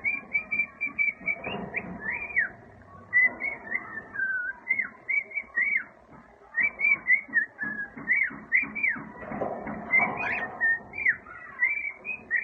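Cockatiel whistling a learned tune: a quick run of short, clear whistled notes at much the same high pitch, many ending in a sharp downward swoop, with brief pauses between phrases.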